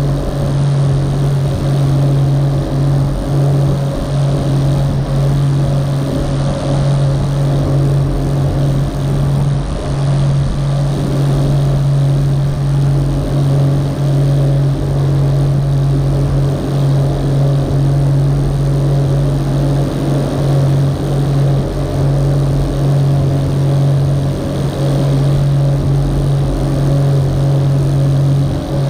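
Rigid inflatable boat's motor running steadily at cruising speed with a constant low hum, water rushing and hissing along the hull beneath it.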